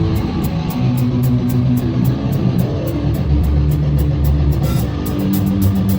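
Heavy metal band playing live: distorted electric guitar and bass holding low riff notes over fast, steady drum and cymbal hits.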